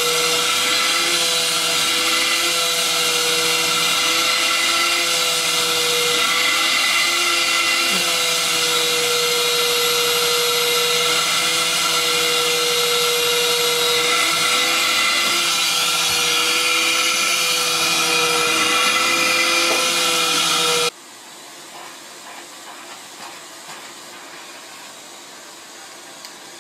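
Vacuum cleaner running steadily with a slightly wavering motor whine. It cuts off suddenly near the end, giving way to much quieter low noise with a few small knocks.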